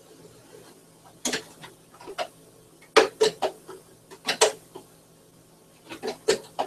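Sharp, irregular clicks and clacks in small clusters from hands working at a home sewing machine and the fabric under its needle, with the machine's motor stopped.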